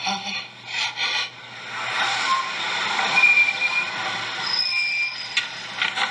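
Film soundtrack played over a lecture hall's speakers: a noisy, busy scene with short high steady tones in the middle and a few sharp clicks near the end.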